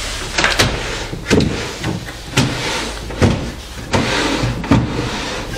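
A string of about eight short knocks and clatters at uneven intervals, as an old piece of furniture is handled and searched, over a steady low hum.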